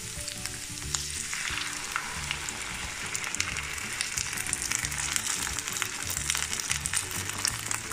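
Kalthappa batter poured into a hot ghee tempering of fried onions in a non-stick pan, sizzling and frying; the sizzle gets louder about a second and a half in as more batter goes in. Soft background music plays underneath.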